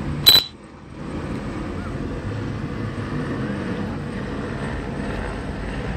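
A sharp click with a brief high tone about a third of a second in, then a steady low rumble of vehicle engines in street noise.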